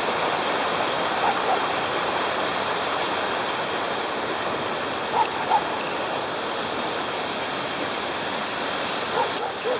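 Waterfall's water rushing steadily, a dense even noise.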